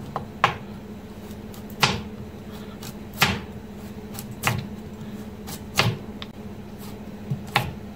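Kitchen knife slicing a peeled carrot thinly on a plastic cutting board: a sharp knock of the blade on the board about once a second, six strokes in all, over a low steady hum.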